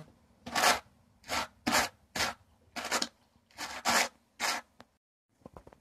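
Wooden hand carders with wire teeth raked across each other through white dog fur, carding it for spinning: a run of about eight quick rubbing strokes, then a pause near the end.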